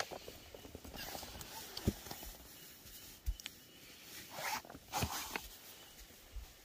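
Faint rustling of camp gear being handled, with a few soft knocks and clicks, and short louder rustles about four and five seconds in.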